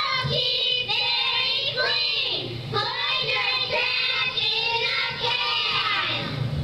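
A group of young girls singing together, played back from a video through classroom speakers; the singing stops near the end.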